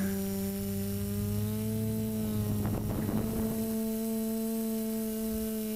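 Quadcopter's electric motors and propellers buzzing steadily, heard through its onboard camera, the pitch rising slightly about a second and a half in.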